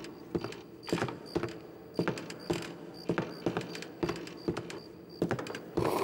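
Cartoon footsteps on a wooden floor: light taps about twice a second, a little uneven.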